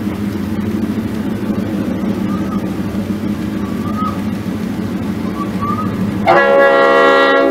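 HO scale model diesel locomotives' sound system: a diesel engine running steadily along with wheel and track noise, then a loud horn blast about six seconds in, held for over a second.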